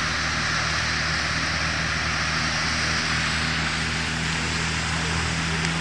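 Steady rushing hiss of a large lake fountain's water spray, with a low steady hum under it.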